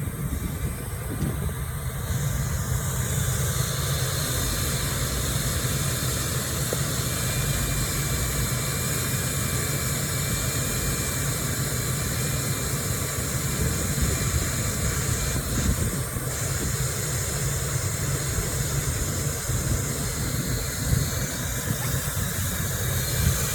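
Hand-held hot-air welder running steadily while welding a TPO roofing patch: a continuous blower hiss over a low hum, with a thin steady whine.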